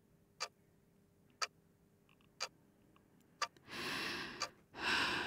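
A clock ticking steadily, about once a second. About two-thirds of the way in, a long breath in and then a sigh out.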